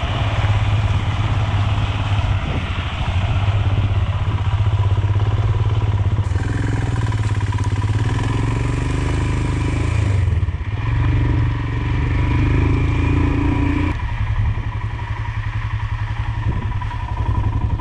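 Royal Enfield Himalayan's single-cylinder engine running at road speed as the bike rides a wet gravel road, its note easing about fourteen seconds in as it slows.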